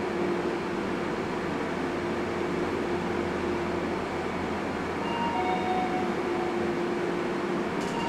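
Hitachi ORDER PULIDO rope-traction elevator car travelling downward with a steady running hum. Faint whining tones come in during the second half as the car slows for its stop, the hum fades, and there is a short click near the end.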